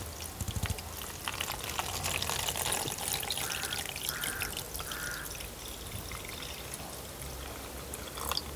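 Liquid poured in a steady stream from a plastic measuring jug into a plastic bucket of circuit boards, splashing onto the boards and into the rising pool. The liquid is a homemade acid stripping solution for tin and nickel.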